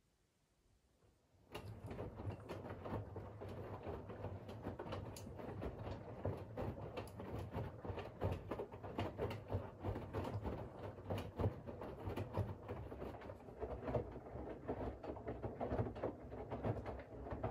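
Siemens iQ700 WG56B2090 front-loading washing machine starting to turn its drum about a second and a half in, after a pause in the wash rhythm. A steady motor hum runs under the dense clatter and sloshing of wet laundry and water tumbling in the drum.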